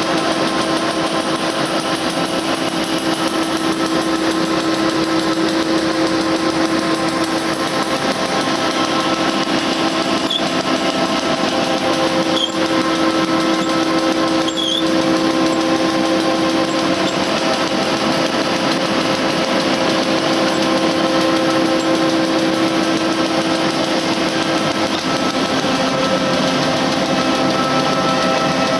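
Stack-type flexographic printing press running steadily while printing a rewinding roll of woven polypropylene fabric: an even mechanical hum with several steady tones, and a few faint clicks about halfway through.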